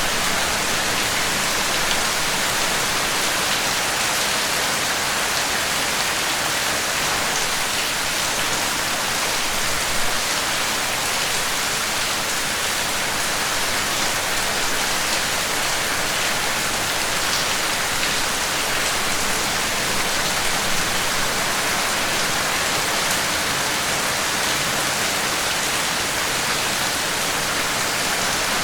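Steady rain falling, an even hiss with scattered drop ticks and one slightly louder patter about ten seconds in.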